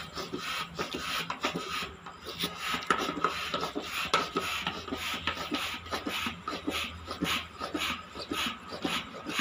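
Foot pump being stepped on over and over to inflate an air mattress: a quick, even run of puffs of air, about two to three a second.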